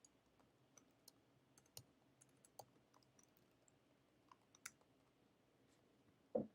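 Faint, irregular clicking of computer keyboard keys being typed, with a short, louder low thud near the end.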